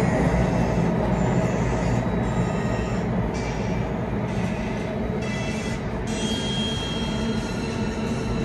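Singapore MRT Circle Line train running, heard from inside the carriage: a steady rumble and hiss of wheels on rail, with faint high-pitched wheel squeals that come and go.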